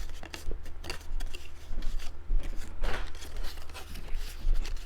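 Stiff cardstock being folded and creased by hand: irregular crinkles, small clicks and rustles, with a longer scrape about three seconds in.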